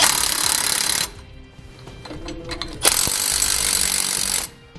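Cordless impact wrench with a 15 mm socket running lock nuts down onto carriage bolts, in two bursts: one about a second long at the start, and one about a second and a half long starting about three seconds in. The nuts are tightened back and forth so that they draw down evenly.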